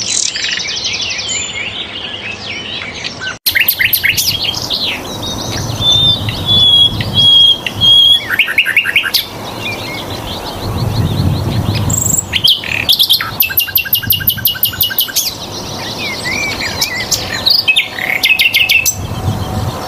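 Sikatan londo flycatcher singing a long, varied song of fast trills, rapid repeated chattering notes and held whistles, played as a tutor recording for caged songbirds. The song breaks off abruptly about three seconds in and resumes at once.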